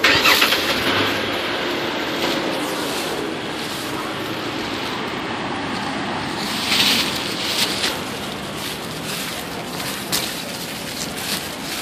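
Dry fallen leaves rustling and crunching under a small child's footsteps, with a few louder crunches, over a steady rushing background noise.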